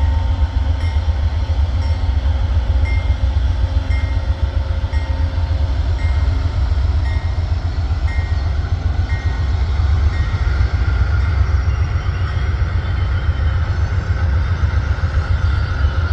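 Amtrak California Zephyr passenger train arriving at a station: a heavy, steady low rumble, with a faint regular tick about once a second in the first half and a higher, hissing edge that builds near the end.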